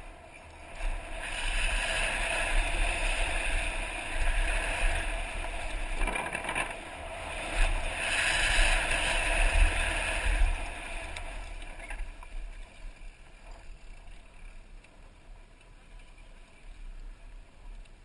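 Wind rushing over a helmet-mounted camera and knobby tyres rolling on a dirt trail as a downhill mountain bike runs at speed, with a few knocks from the bike. The noise dies down over the last several seconds as the bike slows on the flat.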